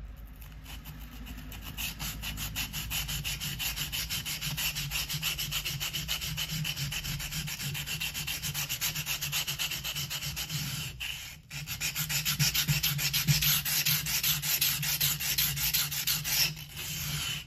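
Steel knife blade scraping in quick back-and-forth strokes on a wet 120-grit Shapton Kuromaku whetstone, held nearly flat so the coarse stone scratches the whole face of the blade. The strokes stop briefly about eleven seconds in, then resume.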